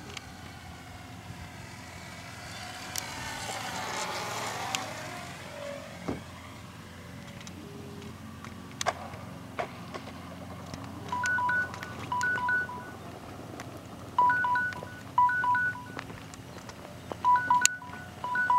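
Electric RC plane's motor and propeller passing low overhead about four seconds in, a faint whine that sweeps down in pitch as it goes by. After the plane is down, short two-tone electronic beeps sound in pairs, repeating every second or two from about eleven seconds in.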